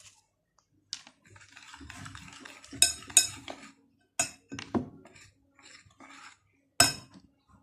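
Spoon and plate clinking and knocking against each other several times, with soft rustling between the knocks.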